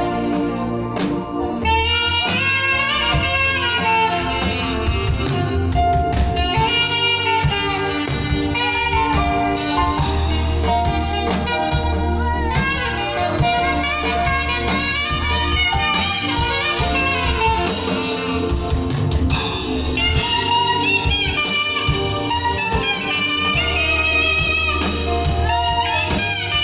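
Saxophone playing a worship melody over a band accompaniment with a steady bass line, its held notes wavering with vibrato.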